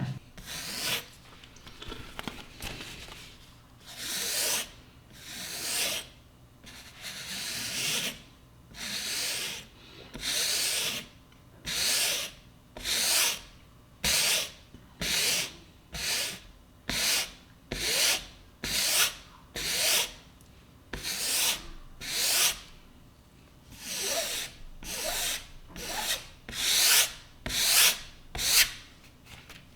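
Sharpening stone on a guided Edge Pro-style knife sharpener, stroked back and forth along a steel knife edge to hone it. The strokes rasp in a steady rhythm of about one a second, a little quicker near the end.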